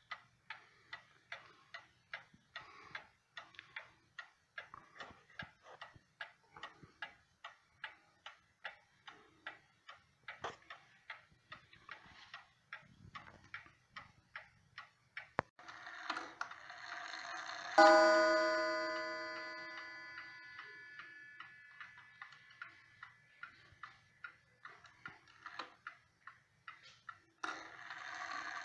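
Ansonia Trieste mantel clock ticking steadily. About two-thirds of the way in, a short rush of noise from the movement is followed by a single loud gong strike for one o'clock, which rings on and fades slowly while the ticking continues. Near the end a rush of noise from the movement starts again.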